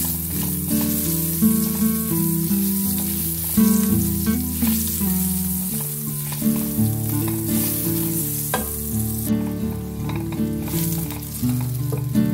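Garlic cloves sizzling in hot oil in a nonstick pan, stirred with a spatula that scrapes and taps now and then. The sizzle fades somewhat after about nine seconds.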